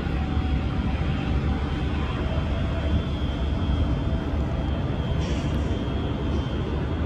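Jet airliner engines heard as a steady low rumble with a faint high whine above it.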